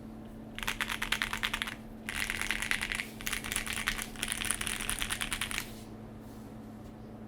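Mechanical keyboard typing on an ai03 Polaris with a polycarbonate plate, CRP Desko PBT keycaps and stock Everglide Aqua King V3 linear switches: fast, clacky key presses in three quick runs with short pauses, stopping about a second before the end.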